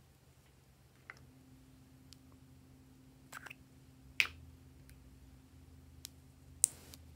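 Scattered sharp plastic clicks and taps as a small plastic cosmetic pot is handled, two of them loud, the second about two-thirds of the way in and followed by a brief scrape of a plastic spatula against the pot.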